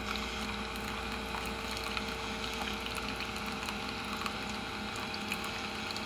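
Single-serve Keurig coffee maker brewing: the steady hum of its pump with water running through it.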